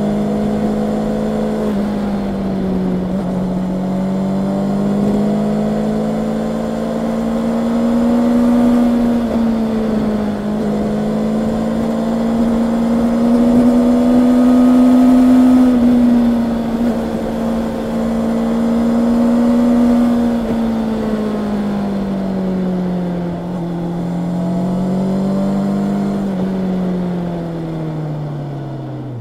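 Honda CB650R's inline-four engine running under way, its revs rising and falling gently with the throttle. Near the end the revs fall away steadily.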